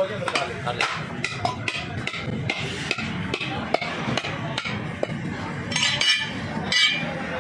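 Butcher-shop clatter: repeated sharp knocks of cleavers and knives on wooden chopping blocks and clinks of metal, over a background of voices.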